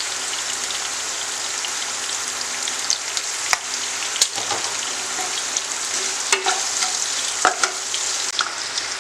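Green chillies frying in hot oil in a pan: a steady sizzle, with a few sharp clicks as they are stirred.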